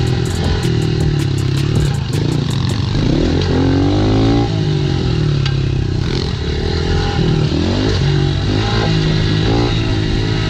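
Dirt bike engine running hard over a rough trail, its revs rising and falling again and again as the throttle is worked.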